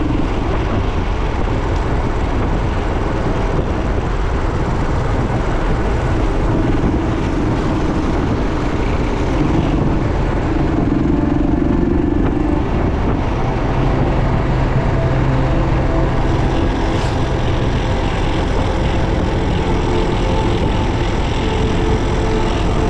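Motor vehicle engines running steadily, with a continuous hum that rises and falls a little in pitch now and then.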